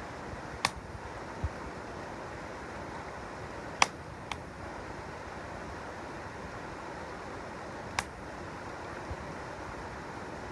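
Mountain stream rushing steadily, with a wood campfire crackling over it: four sharp pops, the loudest about four seconds in, and a dull low thump near the start.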